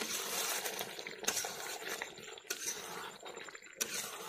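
Chicken pieces sizzling in masala in a kadai as they are stir-fried, with a spatula scraping and clinking against the pan about three times.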